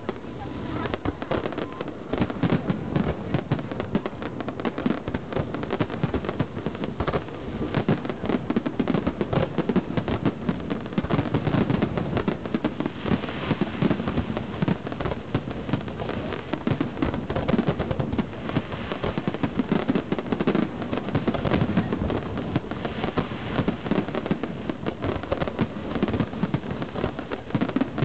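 Fireworks display at its height: a rapid, unbroken string of bangs from many shells bursting at once, with no pause.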